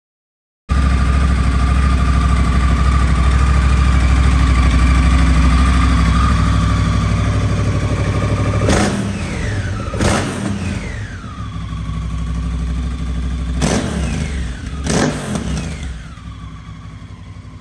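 2019 Honda CRF1000 Africa Twin Adventure Sports' parallel-twin engine idling steadily, then blipped four times in two pairs, each rev rising sharply and falling back to idle. The sound fades toward the end.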